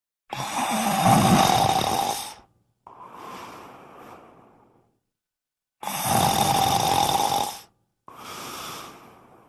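A person snoring: two loud snores of about two seconds each, each followed by a quieter breath that fades away.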